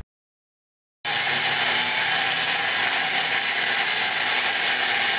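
Silence for about the first second, then a handheld angle grinder with a thin cut-off disc cutting into a flat steel bar. It runs at a steady pitch and level with a continuous hiss.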